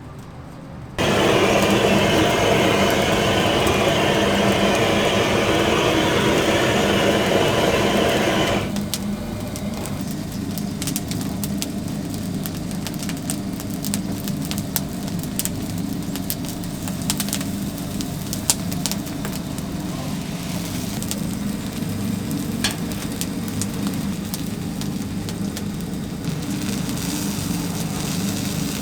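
Oak firewood fire in a chicken-roasting oven: a loud steady rush for several seconds, then a lower steady hum with scattered sharp crackles.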